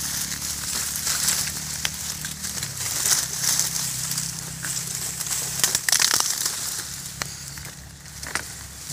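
Dry reed stems crackling, rustling and snapping as a hand grips and pushes through a dense reed thicket, with many short sharp snaps. A low steady hum runs underneath.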